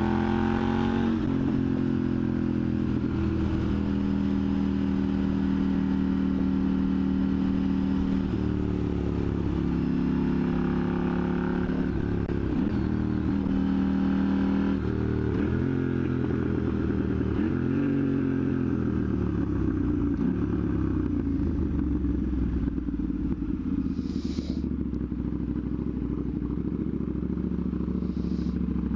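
2021 KTM Duke 890R's parallel-twin engine, with a catless Austin Racing exhaust, running under way on the road. It holds a steady pitch at first, then drops and climbs several times around the middle with shifts and speed changes. It settles into a lower, rougher run near the end, with two brief hisses.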